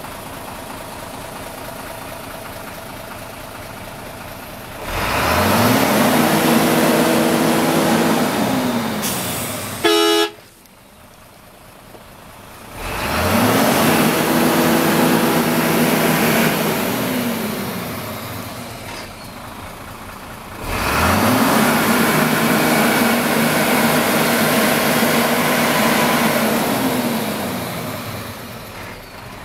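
Mitsubishi Fighter's 6D16 turbo-diesel six idling, then revved up three times. Each time the pitch climbs in about a second, holds for three to six seconds and falls back to idle. Near the end of the first rev, about ten seconds in, there is a short, sharp loud sound, after which the engine runs quieter for a couple of seconds.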